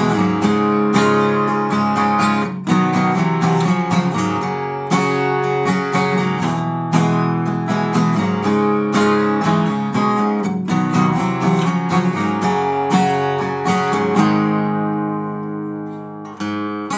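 Background music: acoustic guitar strummed in a steady rhythm, with a chord left ringing and fading near the end.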